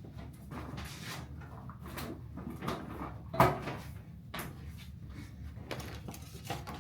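Light handling noises, a run of short rustles and soft knocks, with one sharper knock about three and a half seconds in.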